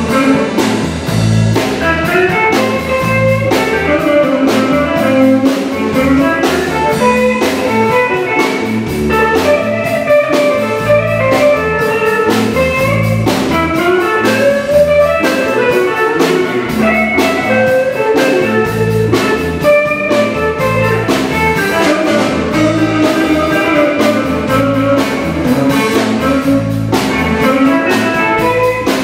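Live blues band playing an instrumental passage: electric guitar lines over electric bass and a drum kit keeping a steady beat.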